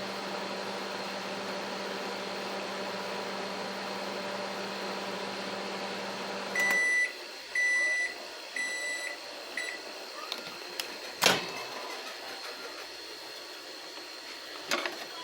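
Microwave oven running with a steady hum, which stops about seven seconds in as the cooking cycle ends. The oven then gives three beeps and a short fourth beep to signal that it is done, followed by a sharp click and, near the end, a smaller one.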